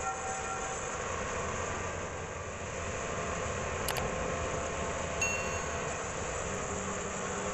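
Band sawmill running with a steady mechanical hum and hiss. There is a sharp click just before four seconds in, and a short metallic ring about five seconds in.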